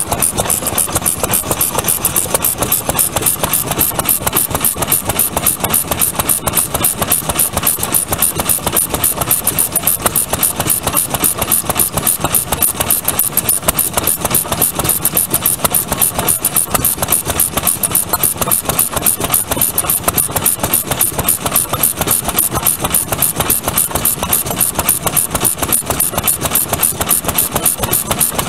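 Vintage Japanese single-cylinder kerosene stationary engine with twin spoked flywheels, running steadily with a rapid, even beat of firing strokes.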